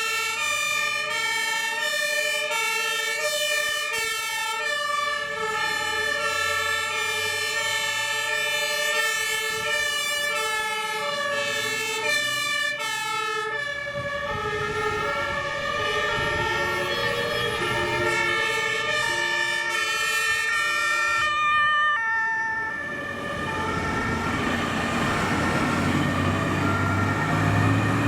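Fire engine's two-tone siren alternating steadily between a high and a low pitch, with the vehicle's engine and road noise growing louder about halfway through. Near the end the siren drops back and the engine and road rumble dominate.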